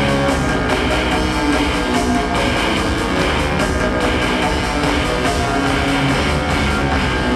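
Live band music with a steady driving beat and sustained instrumental notes.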